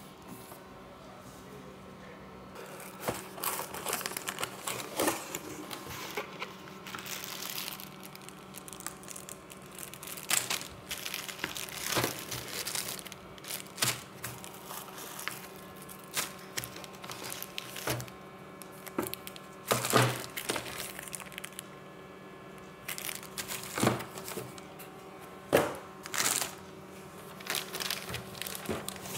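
Plastic packaging bags crinkling and rustling as they are handled, in irregular bursts that begin a few seconds in, with a few louder sharp crackles.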